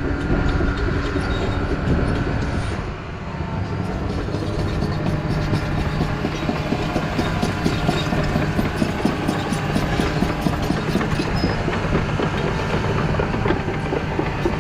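Crawler bulldozer at work: the diesel engine running steadily while the steel tracks clank in a rapid, continuous clatter. The sound eases briefly about three seconds in, then the clatter picks up.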